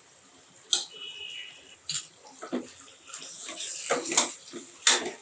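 Steel slotted ladle stirring and scraping thick, wet masala in an aluminium pressure cooker, with a few sharp clinks of metal on the pot. The stirring grows busier in the second half.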